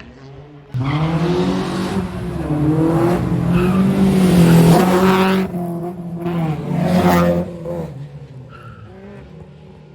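Rally car engine at high revs as the car drives past, starting suddenly a little under a second in, dipping as the driver lifts about halfway through, climbing again, then fading away near the end.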